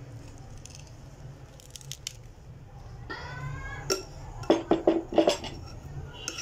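A steel kitchen knife tapping against the rim of a glass bowl to knock off scooped bael fruit pulp: a quick run of five or six sharp clinks about four to five seconds in.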